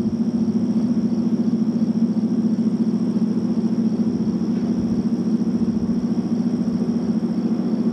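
A steady low engine drone with a fast flutter, over a constant high trill of insects.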